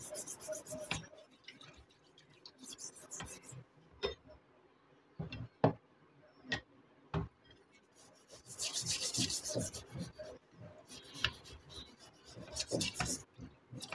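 Small wire brush scrubbing wet, rusty iron blacksmith tongs in a tub of liquid, in several bursts of quick back-and-forth strokes, the longest about two-thirds of the way through. A few separate sharp knocks come between the bursts.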